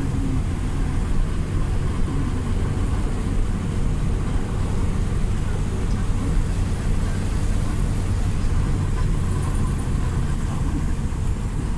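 Steady low engine and road rumble heard inside a moving car's cabin.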